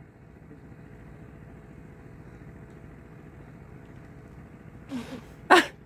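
A small engine runs with a steady low hum. About five seconds in, two short loud sounds break in, the second one louder.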